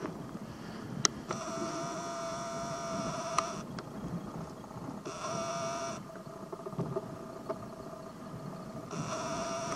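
Camcorder zoom motor whining as the lens zooms in, in three stretches: about two seconds, then one second, then under a second near the end. Under it runs a low wind rumble on the microphone, with a few light handling clicks.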